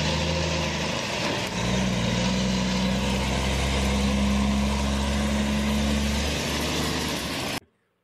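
Heavy cab-over semi-truck's diesel engine running steadily, its note filling out with a stronger, deeper hum about a second and a half in. It cuts off suddenly near the end.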